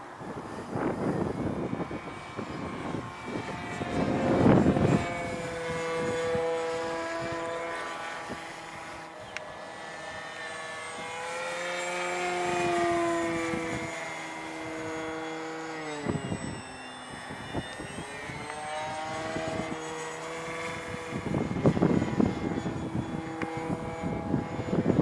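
Radio-controlled model airplane flying overhead, its motor and propeller humming in a steady pitched drone that rises and falls as it manoeuvres, sliding down in pitch as it passes about fifteen seconds in. Bursts of wind on the microphone come and go.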